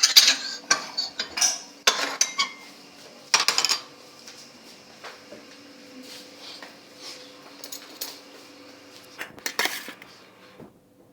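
Spoons clinking and scraping against dishes, with a run of clatters in the first few seconds, scattered light taps after that, and another short clatter near the end.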